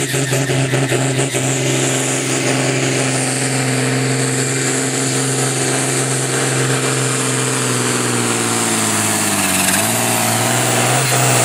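Ford 9000 pulling tractor's diesel engine running hard and steady under full load as it drags the pulling sled. About nine seconds in its pitch sags briefly as the engine lugs, then picks back up.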